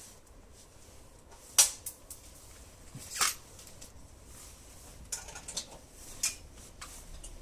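Scattered sharp clicks and knocks of metal door-lock hardware and hand tools being handled, the loudest about one and a half seconds in, with a small cluster of lighter clicks near the end.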